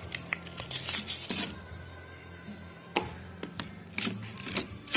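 Toothbrush packaging being opened by hand: a scatter of crackles and sharp clicks, with longer rustling about a second in and again near the end.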